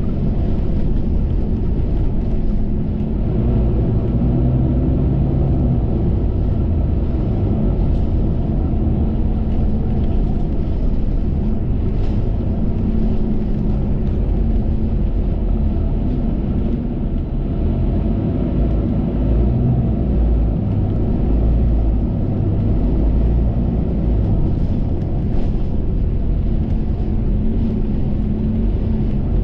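Inside a KMB bus in motion: steady engine drone and road rumble, with the engine note shifting in pitch a few times.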